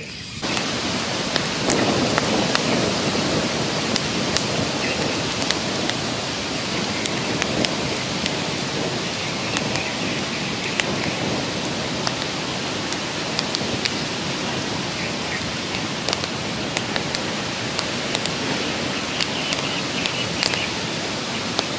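Wood fire burning under a clay pot: a steady hiss with frequent sharp crackles and pops from the burning sticks.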